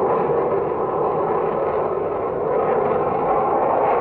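Steady jet engine noise of a Hawker Siddeley Nimrod in flight, from its four Rolls-Royce Spey turbofans, holding an even level without rising or falling in pitch.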